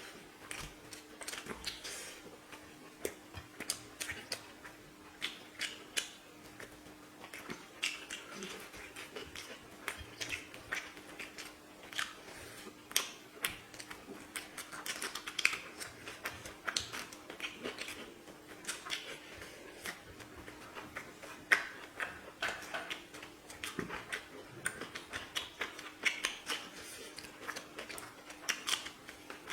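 Close-up eating sounds of chicken biryani: chewing, lip smacks and wet mouth clicks coming irregularly, several a second, over a faint steady hum.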